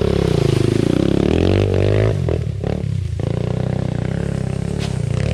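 Dirt bike engine running close by and revving up and down as the bike pulls up a leaf-covered slope, identified as the Hurricane 150 pit bike in shot.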